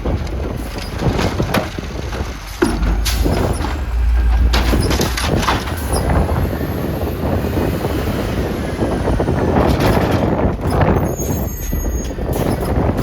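Garbage truck running and working, with several sharp clanks and gusty wind buffeting the microphone.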